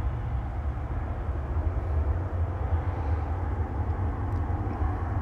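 Boeing 767-200 twin-jet airliner's engines at takeoff thrust just after liftoff, a steady low rumble as it climbs away.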